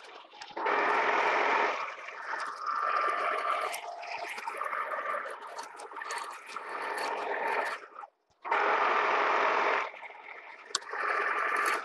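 A Carlton radial drill's twist drill cutting into a 4140 prehard steel bar: a harsh scraping in several loud bursts of a second or two, with quieter running between them as the feed is eased off and taken up again.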